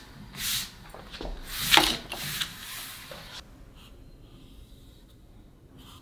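Large sheets of paper rustling and sliding as they are handled, in a few short bursts over the first three seconds or so.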